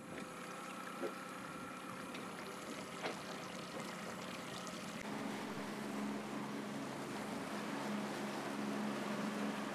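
Outboard motor of a small fishing boat running steadily at cruising speed, with water rushing past the hull and churning in the wake. Two short knocks come about one and three seconds in. About halfway through, the engine hum turns stronger and slightly lower, with more wash noise.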